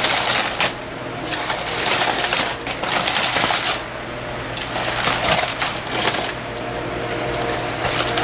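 Aluminium foil and the banana leaves inside it crinkling and rustling in several bursts of about a second each as hands pull the wrapping open.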